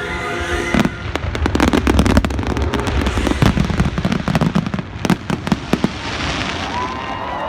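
Fireworks finale: a dense, rapid barrage of bangs and crackles, many shells bursting in quick, irregular succession.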